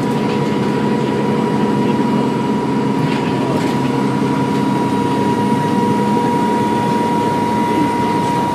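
Dennis Trident II double-decker bus engine running under way, heard from on board, with a steady high turbo whine held at one pitch over the engine's lower note.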